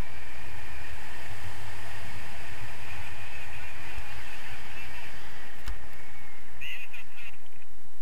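Wind buffeting the microphone of a camera on a paraglider in flight: a loud, steady low rumble. A few brief high squawk-like sounds come near the end.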